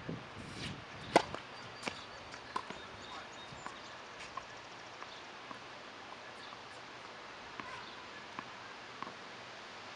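Tennis ball bounced on a hard court, a string of short sharp knocks about 0.7 s apart, the loudest about a second in and the later ones fainter, with a few more near the end.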